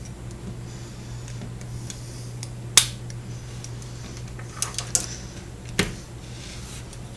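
A handful of sharp plastic clicks and snaps from a smartphone's housing being pried apart with a plastic pick, the loudest about three seconds in and a quick cluster near the end, over a steady low hum.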